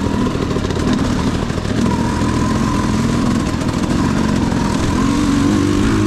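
KTM 200 XC-W single-cylinder two-stroke dirt bike engine running steadily at low to moderate revs, its pitch rising a little near the end.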